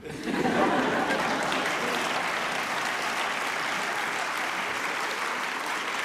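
Audience applauding, starting just as the recited poem ends and going on steadily, easing off slightly near the end.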